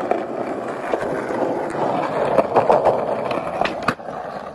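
Skateboard wheels rolling over rough asphalt, a steady gritty roll with a few light clicks and one sharp clack near the end.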